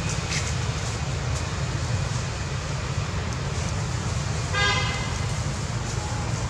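Steady low outdoor rumble with a single short, flat horn-like toot about four and a half seconds in.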